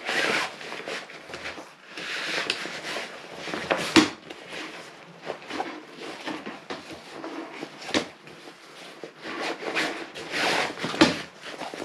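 Camping cot's fabric bed rustling and swishing as a long pole is pushed through its side sleeve, with a few sharp clicks about four, eight and eleven seconds in.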